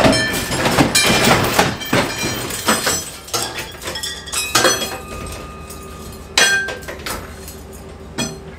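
Metal clanking and clinking, with short ringing tones, from a hoist chain and a hanging Honda K24 engine swinging as the pickup is driven out from under it. The knocks come thick in the first few seconds, then sparser, over a faint low steady hum.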